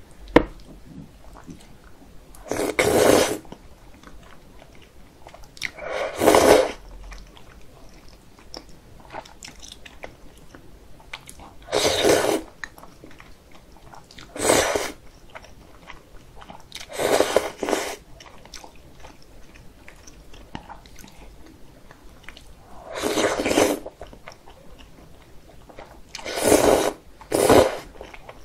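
Slurping cold soy-milk noodles (kongguksu) in thick, icy broth, close to the microphone: about eight loud slurps, each under a second, with quieter chewing between them.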